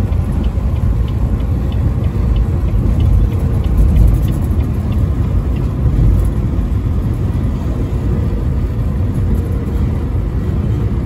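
Steady low road rumble inside a vehicle cruising at highway speed: engine, tyre and wind noise blended into one continuous drone.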